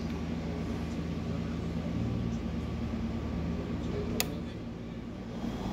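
A steady low machine hum made of several even tones, with one sharp click about four seconds in as a fibre holder clamp on a fusion splicer is snapped shut.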